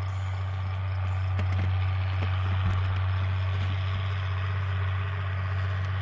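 John Deere 4440's six-cylinder diesel engine running steadily as the tractor pulls a Claas 360 round baler through windrowed hay, a deep, even drone.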